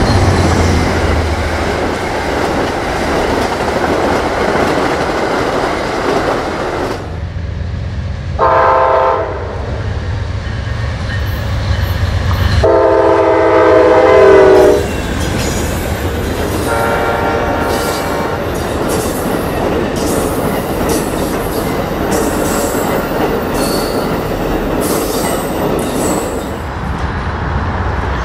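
Amtrak trains hauled by GE Genesis diesel locomotives rumbling past close by. The locomotive horn sounds three chords: a short blast, a longer, louder one, then a fainter one. After that come the wheels clicking steadily over the rail joints as the cars go by.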